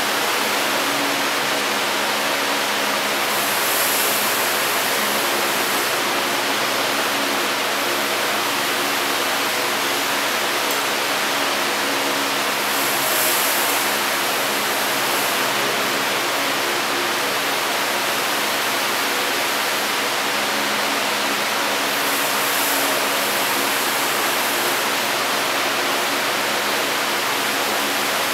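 Steady rushing of running water, an even hiss that swells briefly a few times.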